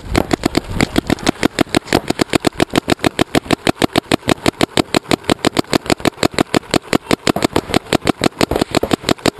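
Shocker RSX electronic paintball marker firing a rapid, steady stream of shots, about nine a second.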